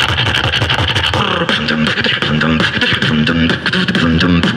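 Beatboxing through a handheld microphone and amplifier: a fast run of sharp snare and hi-hat clicks over a deep bass. From about a second and a half in, the bass becomes a line of pitched notes that step up and down.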